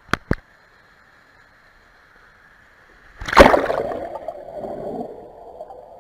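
Two short knocks, then a person plunges off the end of a water slide into the pool about three seconds in with a loud splash. The splash is followed by muffled underwater churning of bubbles that fades into a steady hum.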